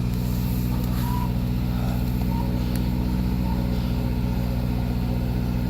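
Mazda car engine idling steadily just after a hard cold start in extreme cold, having just caught and only just staying running.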